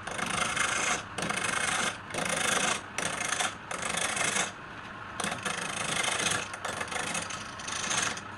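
A tool rasping against wood in repeated strokes, each about a second long, with short breaks between them and a quieter pause around the middle.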